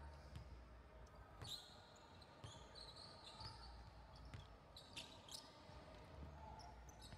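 Faint basketball dribbling on a hardwood gym floor: a series of soft, irregular bounces, with a few short high squeaks from sneakers on the court.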